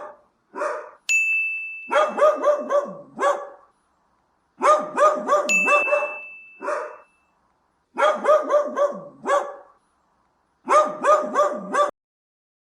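A dog barking in quick runs of four or five barks with short pauses between them. A bright chime rings twice, about a second in and again about five seconds in.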